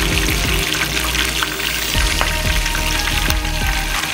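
Oil sizzling steadily with small crackles as a whole chicken deep-fries in a pot.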